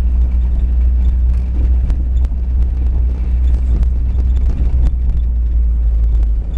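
Car driving through deep snow, heard from inside the cabin: a loud, steady low rumble of engine and tyres, with scattered light ticks and knocks.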